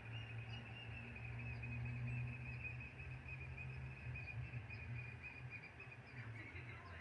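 Small birds twittering continuously in rapid, high chirps, faint, over a low steady hum.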